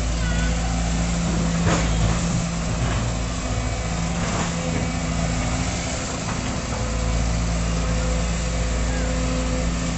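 Sumitomo hydraulic excavator's diesel engine running steadily, with a few sharp knocks in the first half.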